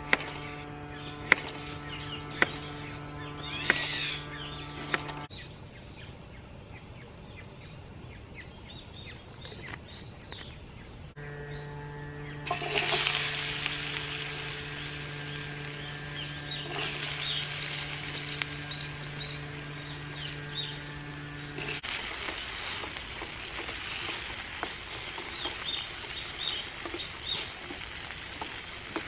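A knife chopping on a wooden cutting board, a few sharp knocks about a second apart. About halfway through, diced potato goes into a hot frying pan on a portable gas canister stove and starts sizzling. The frying goes on with a wooden spatula stirring and scraping in the pan.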